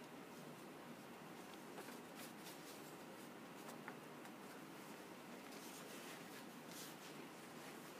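Near silence in a small quiet room, with faint soft swishes of a calligraphy brush drawn across paper every so often.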